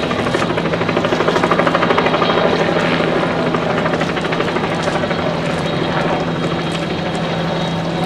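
A steady engine drone with a fast, even beating, loudest in the first few seconds.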